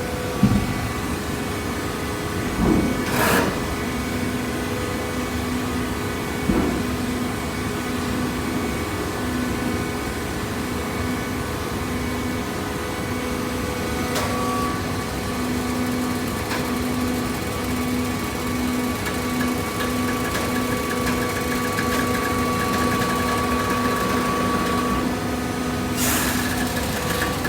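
PET bottle baler running: a steady machine hum with a pitched drone, a few knocks in the first seven seconds and a louder clatter near the end.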